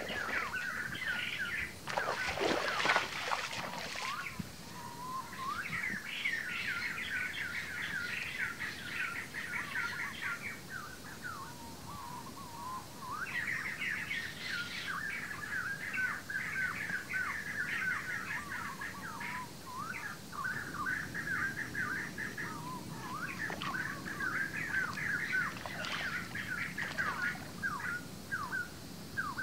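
Splashing of feet wading through shallow water about two to four seconds in, then birds chirping and calling continuously in quick repeated trills.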